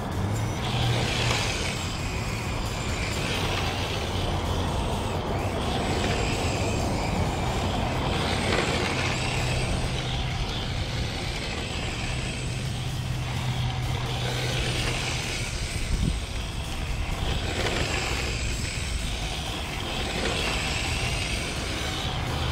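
Yokomo YD-2 SX III RC drift car sliding on asphalt: its electric motor whines and its hard drift tyres hiss in repeated surges as it is throttled through slides. A steady low hum runs underneath.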